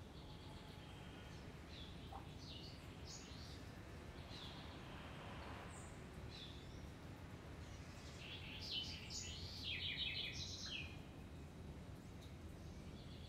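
Birds chirping and calling in short scattered notes, with a busier run of quick chirps about nine to eleven seconds in, over a faint steady low rumble.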